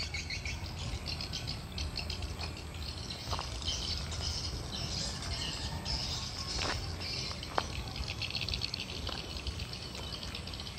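Outdoor ambience of birds chirping and insects chirring, over a low steady rumble, with a few short ticks.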